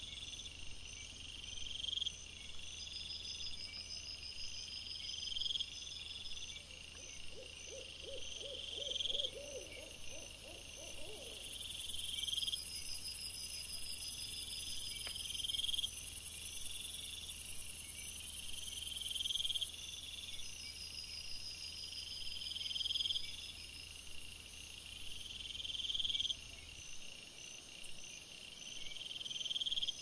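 Night-time woodland sounds: a high chirp repeating about every two seconds over a steady high hiss, with a short run of about eight quick low calls about a third of the way in.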